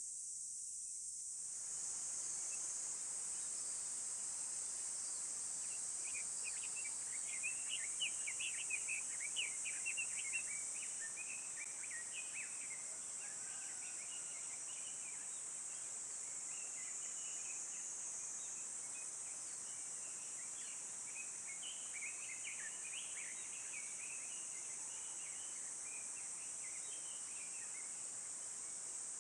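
Woodland ambience: a steady high-pitched insect drone runs throughout. Several seconds in, small birds start chirping in a busy flurry of quick calls, which then thins to scattered chirps.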